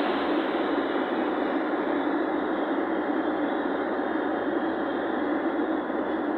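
Steady road noise of a moving vehicle: an even noise with no distinct events.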